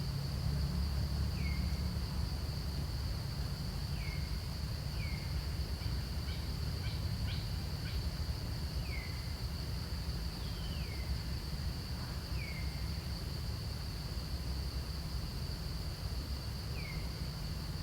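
Outdoor ambience: a steady high insect drone over a low rumble, with short downward-sliding chirps every second or two and a few quick clicks about six to eight seconds in.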